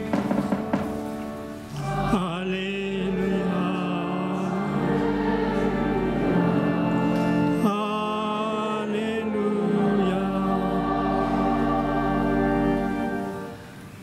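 Church choir singing the acclamation before the Gospel in long held notes, in two phrases with the second starting about halfway, fading out near the end.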